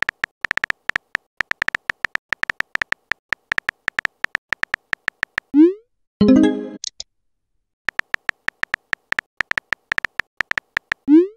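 Texting-app sound effects. Rapid synthetic keyboard taps, several a second, play as a message types out. About five and a half seconds in there is a rising whoosh as it is sent, then a short chime; after a pause, more typing taps and another rising whoosh near the end.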